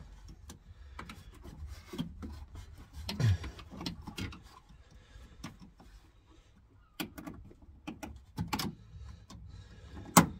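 Scattered clicks, taps and rubbing as hands work a plastic quick-connect fuel-line clip loose at the van's fuel tank. A sharp, loud click near the end as the clip pops out.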